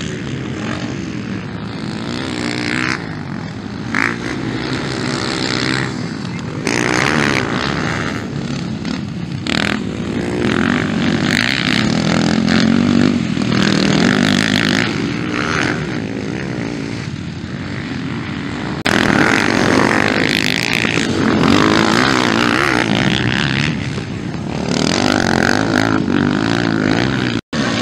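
Motocross dirt bike engines revving hard and falling off as riders jump and corner, the pitch rising and dropping with the throttle. The sound changes abruptly several times, with a brief dropout near the end.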